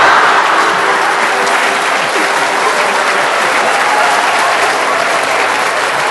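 Audience applauding, loudest at the start and easing only slightly.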